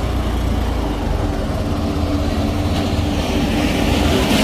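Motorcycle engine running steadily on the move, with rushing wind noise.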